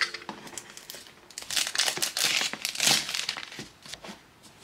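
Rustling, scraping and crinkling of a cardboard gift box and its packaging being handled and opened by hand, loudest from about a second and a half to three seconds in.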